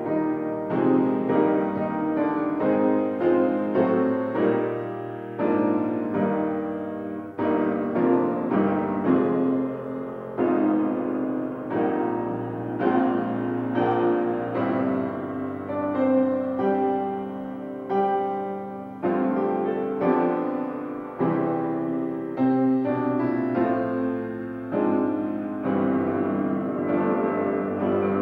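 Piano playing alone: a steady run of struck notes and chords, each fading after it is played.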